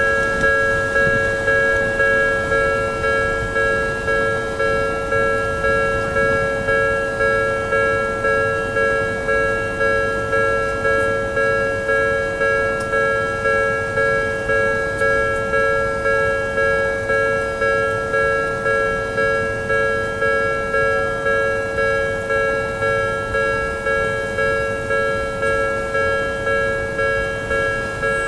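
Japanese railway level crossing's electronic warning bell ringing, a steady repeated ding at an even pace, warning that a train is coming.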